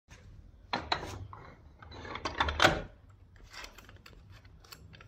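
Snode AD80 adjustable dumbbell handle and its weight plates clunking and scraping as the handle is set back into its cradle. A run of sharp clicks and clunks is loudest about two and a half seconds in, followed by lighter clicks.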